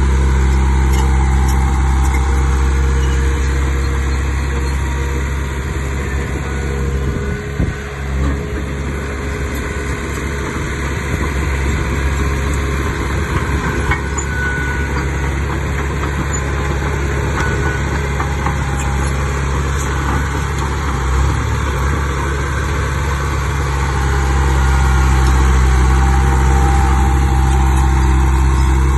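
Diesel engine of heavy earthmoving machinery running steadily for the whole stretch, easing off slightly a few seconds in and building up again near the end.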